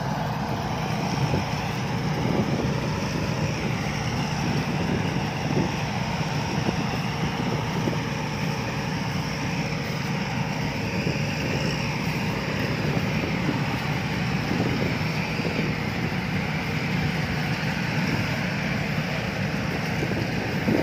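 Two rice combine harvesters running steadily as they harvest together, their engines and threshing machinery making one continuous, even mechanical noise.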